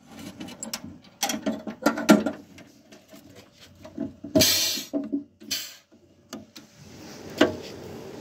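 A steel equipment box on a lorry being unlatched and opened: metal latch clicks, a dangling chain rattling against the box, and clanks and scrapes of the steel door swinging. Near the end a steady low mechanical hum rises in.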